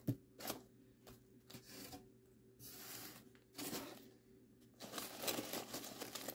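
Faint rustling and crinkling of aluminium-foil packaging being handled and pulled open, in short irregular bursts that become busier near the end.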